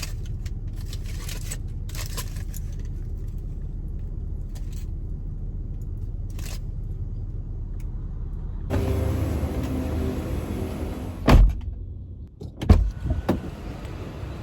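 Car cabin noise while driving: a steady low engine and road rumble. About nine seconds in it gets louder, with a humming engine note, and then come two sharp knocks.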